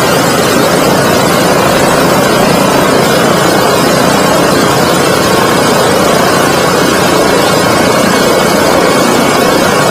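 Boeing B-17 Flying Fortress's nine-cylinder Wright R-1820 Cyclone radial engines running steadily with propellers turning, just after start while still smoking.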